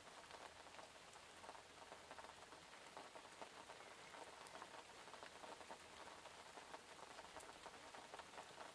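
Soft, steady rain, with many small drops pattering on surfaces.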